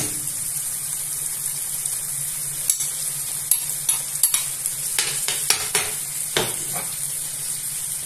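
Tomato sauce sizzling in a non-stick frying pan on a gas hob as diced raw chicken breast is spooned in from a bowl, with a metal spoon clicking and scraping against the bowl and pan while the chicken is stirred in.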